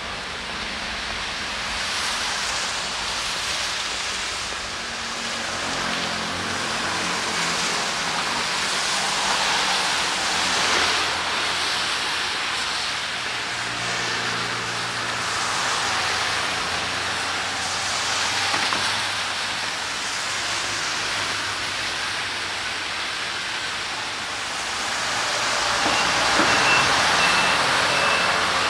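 Traffic on a wet city street in the rain: a steady hiss of tyres and rain that swells every few seconds as cars pass, louder near the end. A faint, high, repeated beeping comes in near the end.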